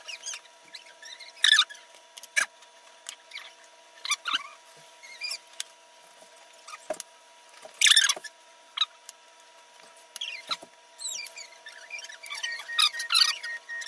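Intermittent light scrapes, clicks and rustles from handling things by hand, irregular and mostly high-pitched, over a faint steady hum.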